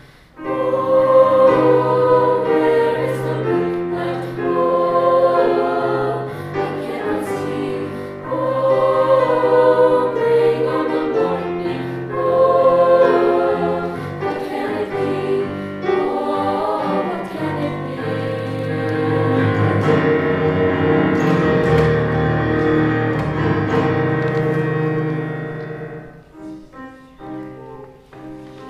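A choir singing in harmony, in phrases that repeat about every four seconds, then swelling into a long loud held chord that falls away to quieter, sparser singing near the end.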